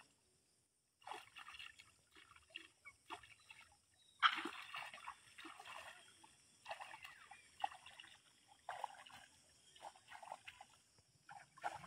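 Faint, irregular splashing and sloshing of muddy paddy water as hands work rice seedlings in a flooded rice paddy, loudest about four seconds in.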